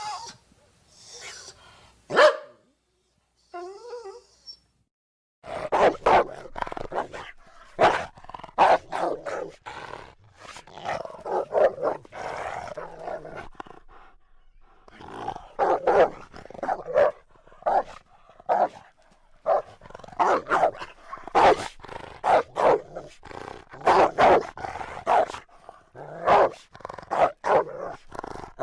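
Dog barking and growling in a rapid, irregular string, starting about five seconds in after a few short, separate sounds and brief gaps.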